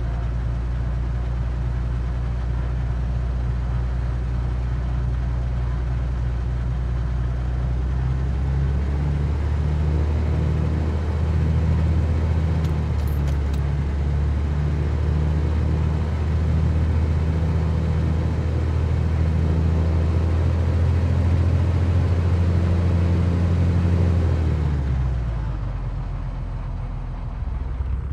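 Cessna 182Q's six-cylinder Continental O-470 engine and propeller droning steadily, heard from inside the cabin. About 25 seconds in, the drone falls away and quietens.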